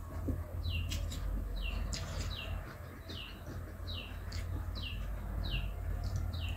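A bird chirping over and over, each call a short falling chirp, repeated about every three quarters of a second. Underneath are a few sharp clicks and smacks from someone chewing rice and pork curry eaten by hand, and a steady low hum.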